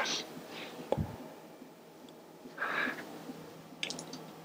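Faint handling sounds of work on a bicycle's rear wheel: a couple of soft rustles, one sharp click about a second in and a few small clicks near the end.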